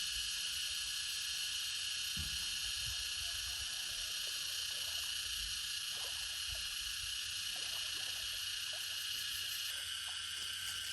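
Steady, dense insect chorus of cicadas or crickets, high-pitched and unbroken, with a few faint low knocks and rustles of handling near the water underneath.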